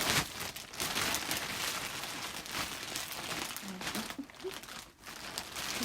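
Packaging crinkling and rustling as a large boxed item is handled and unwrapped, louder in the first three seconds and then quieter.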